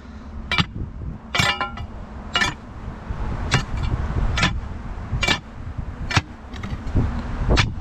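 Steel crowbar prying and knocking against rock in a crevice: about nine sharp clinks, roughly one a second, some ringing briefly like struck metal, over a steady low rumble.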